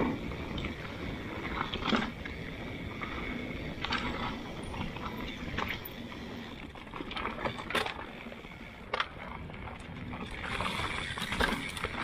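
Mountain bike riding fast down dirt singletrack: a steady rush of tyres over dirt and dry leaves, with sharp knocks and rattles from the bike hitting bumps every second or two.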